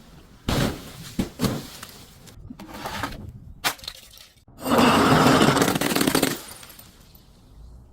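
Glass breaking: a few sharp cracks and snaps, then a loud crunching shatter about four and a half seconds in that lasts under two seconds and dies away.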